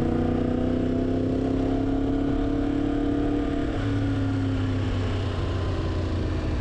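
Yamaha MT-10's crossplane inline-four running under way, its note sliding slowly lower for the first few seconds as the bike eases off, then holding steadier.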